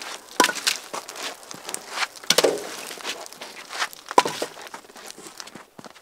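Split logs tossed into the steel firebox of a Woodmaster outdoor wood furnace, landing with several sharp knocks among smaller clatter, over the crackle of the fire and crunching footsteps in snow.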